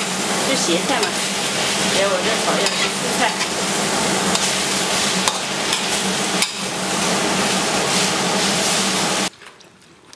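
Shredded vegetables sizzling as they are stir-fried in a wok, with a spatula scraping and clattering against the pan, over a steady low hum. The sizzle cuts off suddenly about nine seconds in.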